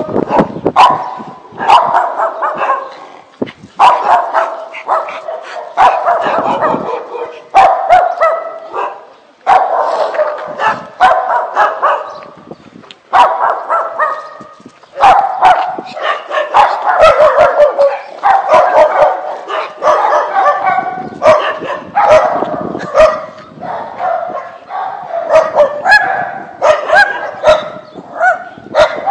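Small pinscher dog barking and yipping over and over, in strings of rapid calls broken by short pauses.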